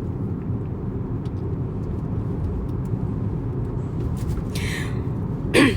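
Steady low rumble of road and engine noise inside a moving car's cabin. There is a brief hiss about four and a half seconds in and a short vocal sound near the end.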